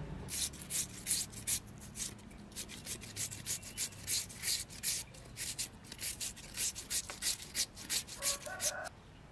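Raw cassava tuber being grated on a hand-held julienne grater, a sharp rasping scrape on each stroke, about three strokes a second. The grating stops near the end.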